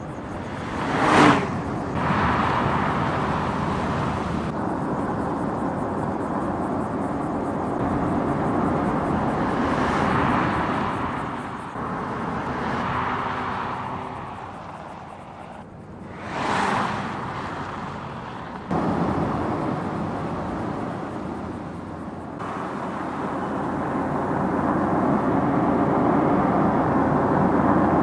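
Audi TT Coupé driving at speed: a steady engine note with tyre and road noise. There are quick pass-bys about a second in and again about 17 seconds in, and the engine grows louder near the end as the car comes closer.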